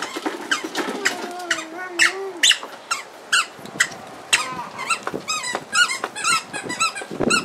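Repeated high-pitched plastic squeaks from a plastic ride-on toy car as its steering wheel is turned, coming faster in the second half. A brief wavering hum sounds about a second in.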